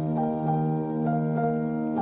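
Background music: soft, calm instrumental with sustained tones and gentle notes about twice a second.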